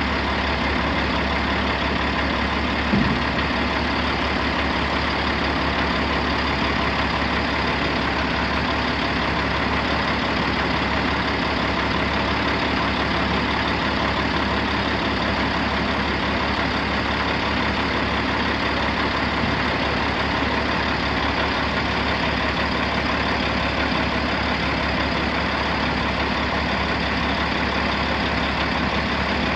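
Caterpillar C12 six-cylinder diesel engine of a 1999 International 9200 dump truck idling steadily, with one brief knock about three seconds in.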